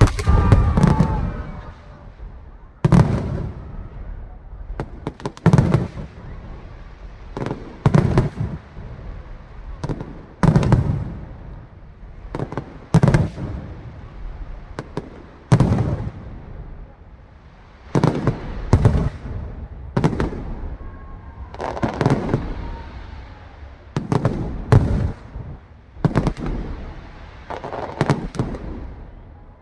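Aerial fireworks bursting in a steady run of loud booms, about one every two and a half seconds. Each boom trails off into a rumbling, crackling decay before the next shell breaks.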